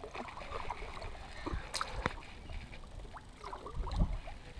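Water lapping and splashing lightly against a fishing kayak, with scattered clicks and knocks of rod and reel handling: a sharp click about two seconds in and a duller thump near the end.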